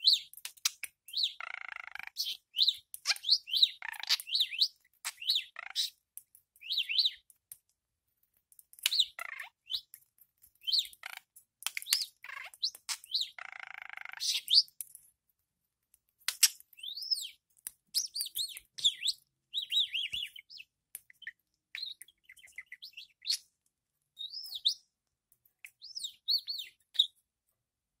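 Budgerigar chattering and warbling in quick bursts of high chirps and gliding whistles, with short pauses between bursts and a few longer buzzy phrases.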